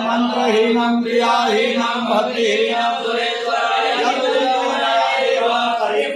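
Voices chanting Hindu mantras in a continuous recitation, the chanting of a consecration rite.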